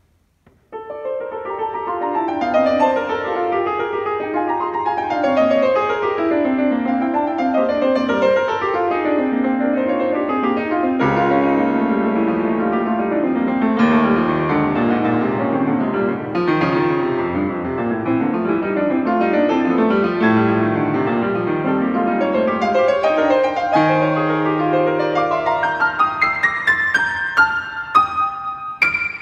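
Bösendorfer grand piano playing a solo piece: after a brief silence, dense, fast-moving figures fill the middle of the keyboard, deep bass notes come in about eleven seconds in, and near the end the texture thins to separate high notes.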